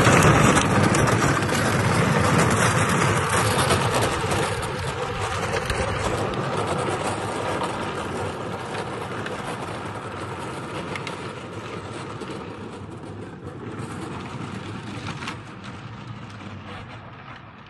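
A Power Wheels ride-on toy car rolling downhill on its plastic wheels with a steady rattling noise, fading gradually as it moves away.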